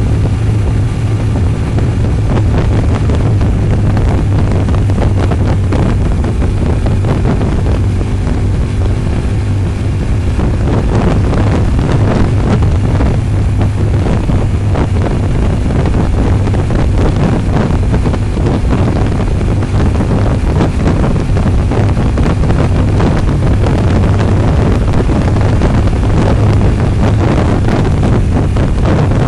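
Motorcycle engine running at a steady cruise with road and wind noise. A constant low hum sits under heavy wind rush on the microphone.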